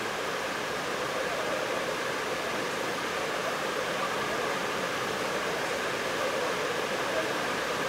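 Steady background noise of an indoor practice hall, an even hiss with a faint wavering hum and no bat-on-ball strike.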